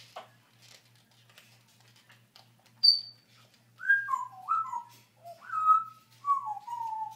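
African grey parrot whistling: one short high whistle about three seconds in, then a run of lower whistled notes, several falling in pitch, through the last three seconds.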